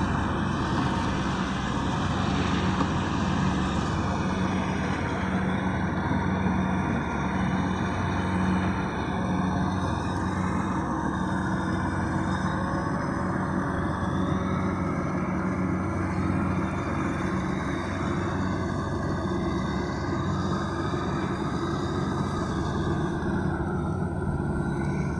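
Kubota DC-70 rice combine harvester's diesel engine running steadily while it harvests, a constant drone that holds the same pitch.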